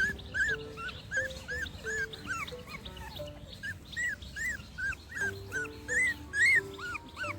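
Labrador puppies squeaking and whimpering: short, high cries that rise and fall, two or three a second, over background music with a slow melody.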